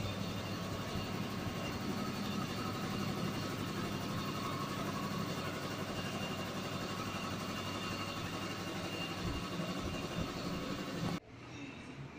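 Steady machine running noise with a constant low hum, which cuts off suddenly near the end.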